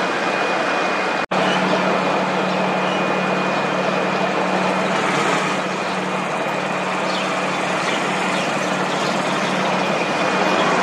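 Highway traffic noise: steady engine noise and tyre noise of passing buses, motorbikes and three-wheelers. The sound cuts out for an instant just over a second in, and after that a steady low engine hum close by runs under the traffic.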